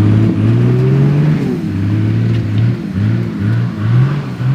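Four-wheel-drive vehicle engine revving, held and climbing at first, then rising and falling in about five quick revs in the second half.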